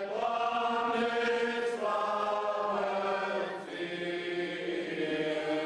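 Orthodox liturgical chant: sung voices holding long notes over a steady low drone, moving to a new note about two seconds in and again near four seconds.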